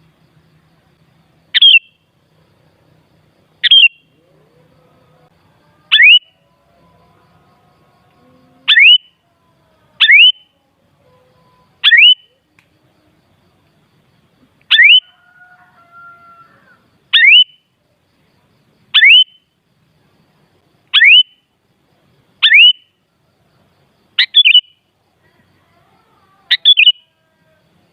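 Sooty-headed bulbul (kutilang) giving short, sharp calls that sweep upward, about one every two seconds, with two calls in quick succession near the end.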